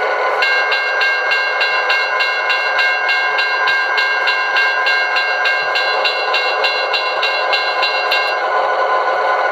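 QSI Maxx Traxx model-train sound unit playing a diesel locomotive's running sound through its speaker, with a bell ringing steadily about four times a second that stops a little before the end.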